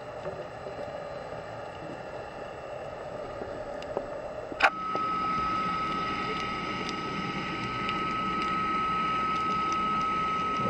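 Underwater sound picked up by a diver's camera at an offshore oil platform: a steady muffled hiss with faint tones. About four and a half seconds in there is a sharp click, after which a steady high whine carries on.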